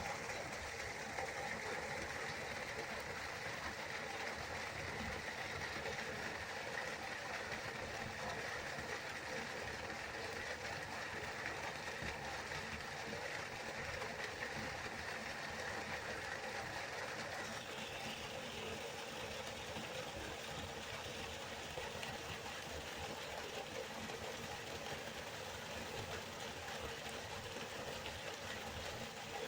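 Waterfall: the steady rushing of falling water, even and unbroken, its hiss shifting slightly higher about two-thirds of the way through.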